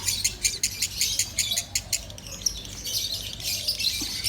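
Lovebird singing loudly: a fast series of sharp, high chirps at about eight a second, easing off about halfway through and picking up again near the end.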